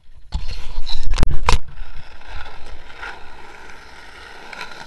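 Skateboard wheels rolling over asphalt: a loud rumbling stretch with two sharp knocks about a second in, then a steady, quieter roll.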